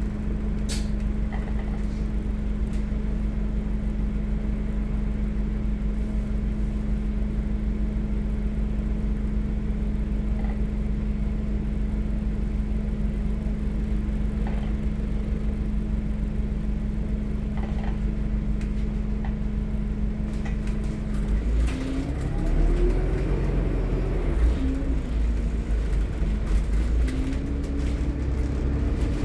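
Alexander Dennis Enviro400 MMC double-decker bus engine heard from inside the passenger saloon: a steady drone at first, then about three-quarters of the way through the bus pulls away and the engine note rises, dips and rises again as it gathers speed. A few light knocks and rattles from the bus interior.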